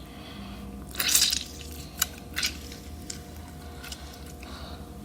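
A lemon squeezed by hand, juice dripping into a bowl: a wet squelch about a second in, then a few light drips and clicks.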